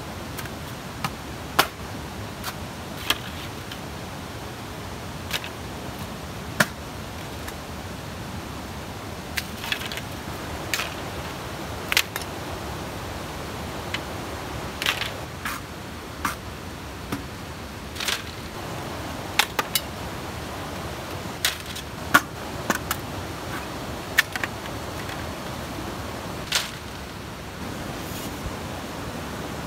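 Bamboo poles knocking and cracking as they are split and handled: sharp, irregular clacks every second or so over a steady hiss of stream water.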